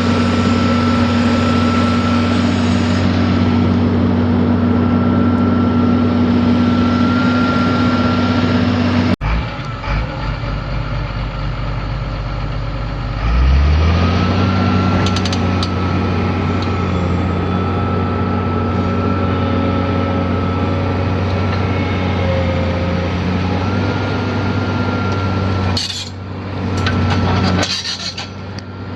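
Doosan DX300LC hydraulic excavator's diesel engine running steadily with a faint steady whine over it. There is an abrupt change in the sound about nine seconds in, and a few seconds later the engine note rises and then holds steady.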